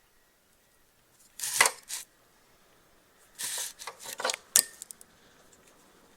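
Short clatters and sharp clicks of metal parts and tools being handled and set down, in three groups: about a second and a half in, then again around three and a half to four and a half seconds in.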